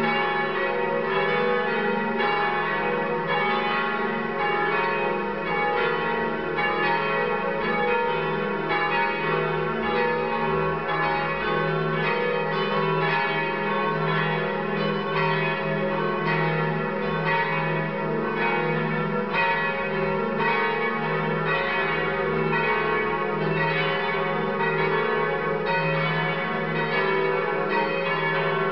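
Several cathedral church bells ringing together in a continuous peal, the strikes coming several times a second and overlapping over a steady hum of their lingering tones.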